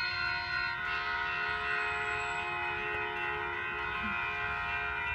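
Grade-crossing warning bells ringing continuously, a steady ringing chord of several tones, with a train approaching underneath.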